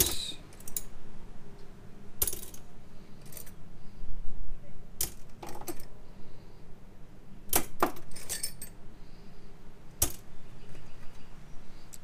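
Metal hand tools clinking against each other: ratcheting box-end wrenches picked up and set down on a pile of wrenches, pliers and screwdrivers. Separate sharp metallic clinks a second or two apart, with a few quick clinks close together around the middle.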